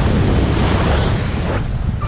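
Rushing airflow from a fast speedflying wing flight buffeting the camera microphone: a loud, deep wind rumble that swells and eases in gusts.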